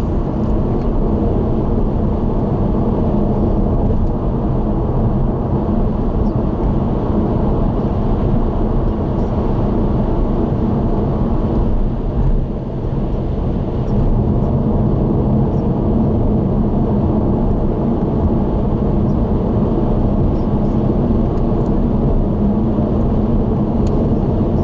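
A car driving at expressway speed: steady tyre and road noise with an engine hum, with a brief dip in level about twelve seconds in.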